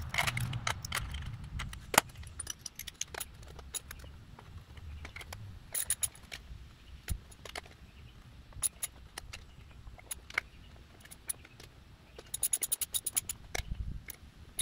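Steel bolts and hand tools clinking against the aluminium crankcase cover of a Briggs & Stratton single-cylinder engine as the cover bolts are put back in, with a rapid run of about a dozen clicks near the end.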